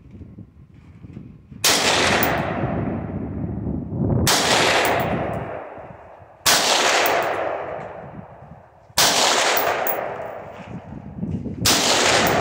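Retro Armalite rifle fired five single shots, about two and a half seconds apart, the first a little over a second and a half in. Each sharp crack is followed by a long echo that dies away over a couple of seconds.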